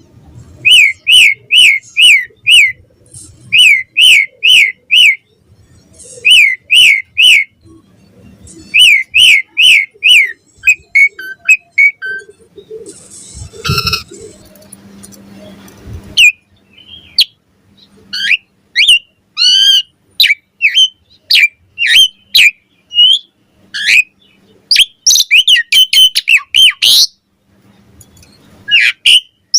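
Javan pied starling (jalak suren) singing vigorously: groups of four or five quick, repeated whistled notes, then a more varied run of whistles and chattering calls. A short rough noise comes about halfway through.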